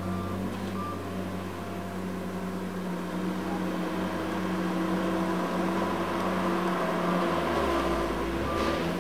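Tigercat LX870C tracked feller buncher's diesel engine running steadily under hydraulic work, with short beeps of its travel alarm near the start and again at the end as the machine moves.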